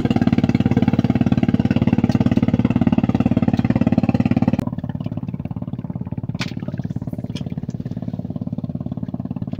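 Small boat engine running steadily with a fast, even firing pulse; a little under halfway through it abruptly becomes quieter and duller and runs on at the lower level.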